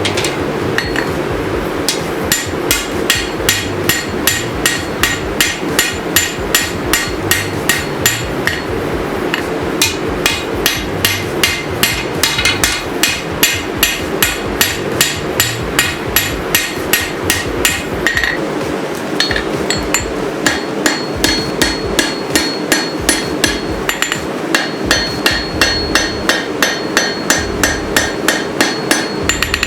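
Steady rhythm of hammer blows on steel, about two to three strikes a second, each a sharp ringing impact, with a brief pause about two-thirds of the way in; a steady rushing noise runs underneath. This is a blade being hand-forged at the anvil.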